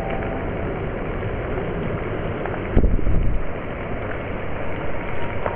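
Rain and wind in a storm: a steady rushing noise, with a brief louder low rumble about three seconds in.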